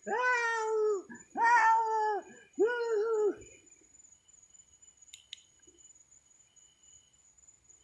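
Three long, high-pitched wailing cries in the first few seconds, each held for about a second and dropping in pitch as it ends. Then it goes quiet apart from a brief rustle or click about five seconds in.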